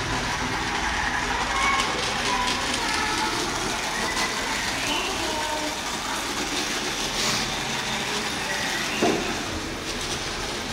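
Model railway trains running steadily on a large exhibition layout, with faint voices in the background and a single knock about nine seconds in.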